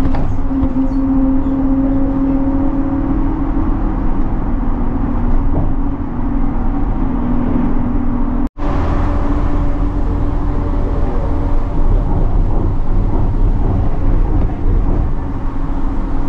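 Bus engine running with road noise, a steady low hum heard from inside the moving bus. There is a brief break about halfway through.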